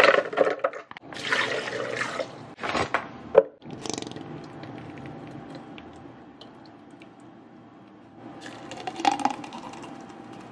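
Omelette frying in a pan: noisy bursts of sizzling and clatter, then a steadier, quieter sizzle, with one sharp knock about three and a half seconds in and another louder burst near the end.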